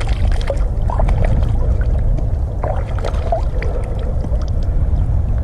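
Shallow river water sloshing and splashing around hands as a carp is let go at the water's edge, with scattered small splashes over a steady low rumble.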